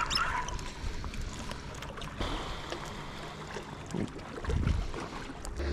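Wind on the microphone and water lapping at rocks, with scattered light clicks of fishing tackle being handled and a dull bump about four and a half seconds in.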